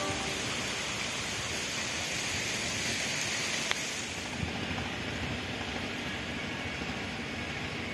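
Steady rushing noise of a distant train on the line, with no distinct beats or tones; the high hiss thins out about four and a half seconds in.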